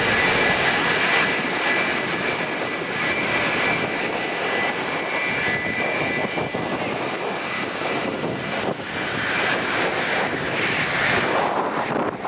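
Airbus A330's jet engines at takeoff power: a steady, loud roar. A high whine over it fades out during the first half as the airliner departs.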